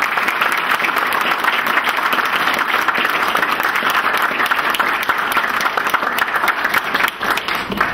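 Audience applauding: dense, steady clapping from many people that dies away near the end.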